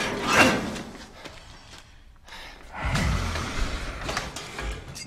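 Metal cage bars and door clanging and rattling as they are worked by hand. There is a loud clang about half a second in, then more rattling and scraping from about three seconds in.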